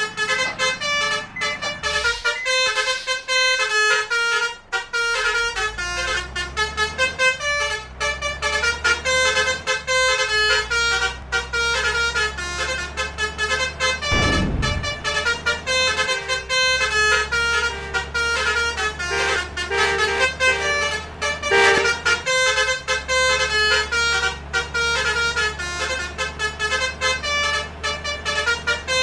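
Basuri multi-trumpet 'telolet' bus horns playing rapid tunes of short, changing notes without pause, over an engine's steady low hum. A brief rush of noise sweeps past about halfway through.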